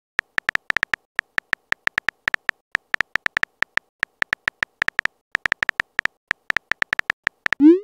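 Texting-app keyboard typing sound effect: a rapid, uneven run of short clicks, about six a second, as a message is typed, ending in a quick rising swoop as the message is sent.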